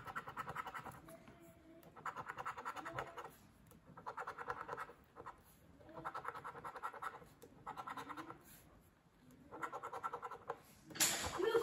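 A coin scraping the latex coating off a paper scratch-off lottery ticket: six bursts of quick rubbing strokes, each about a second long, with short pauses between. Near the end a louder sound with a wavering pitch comes in.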